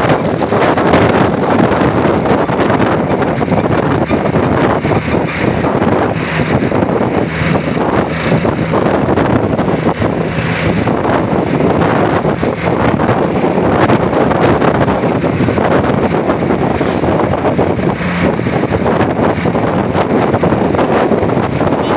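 Steady loud roadside vehicle noise, engines and tyres, with wind buffeting the microphone; no telolet horn tune sounds.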